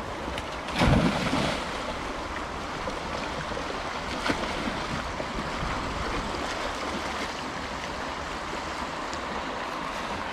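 Steady rush of a fast-flowing shallow river, with a short louder burst about a second in.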